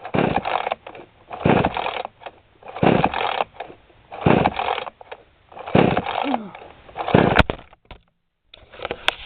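A 20:1-mix two-stroke chainsaw being pull-started, six hard pulls about a second and a half apart, each a short rasp of the recoil rope cranking the engine, which does not catch. The owner puts its failure to start down to a weak spark and a flooded plug.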